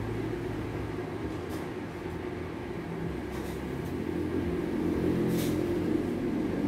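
Low, steady mechanical rumble that grows louder near the end, with a few faint ticks.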